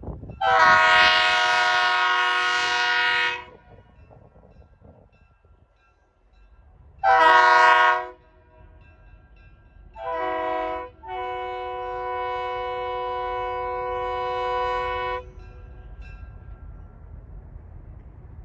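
Locomotive air horn sounding four loud blasts, each a chord of several tones: one long, two short, then a final long one.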